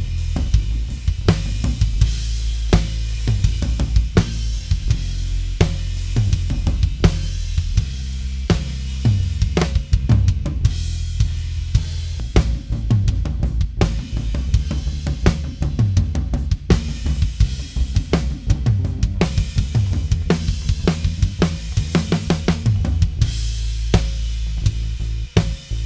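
Multitrack drum kit recording playing back through a digital live-mixing console: kick, snare, hi-hat and cymbals in a steady groove with tom hits, over a steady low bass. The rack tom's EQ is being adjusted, hunting its fundamental and cutting the midrange around 600 Hz.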